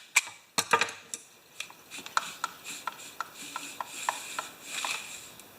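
Hand handling of a lawnmower's recoil starter and its pull rope: a few sharp clicks, then rubbing with a string of light ticks, about two or three a second.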